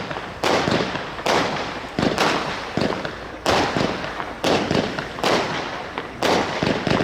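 Zena Luftblitz firework battery firing, with about eight loud bangs going off roughly once a second, two of them close together about two seconds in. Each bang trails off in a noisy tail that fades over most of a second.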